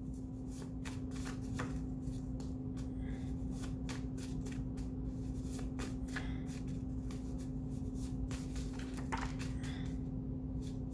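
A deck of oracle cards shuffled by hand overhand, a quick irregular patter of card-on-card flicks and slaps, several a second, over a steady low hum. The reader is shuffling until a card jumps out of the deck.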